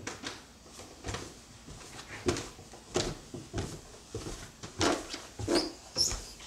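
Footsteps coming down wooden stairs: about eight uneven thuds of feet landing on the wooden treads.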